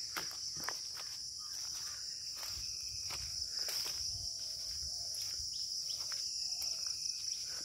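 A steady, high-pitched drone of insects calling together without a break, with a few faint clicks beneath it.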